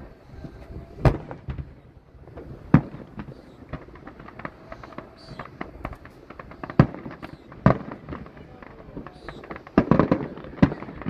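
Aerial fireworks bursting: loud single bangs every second or few, a quick cluster of bangs near the end, and smaller crackling pops in between.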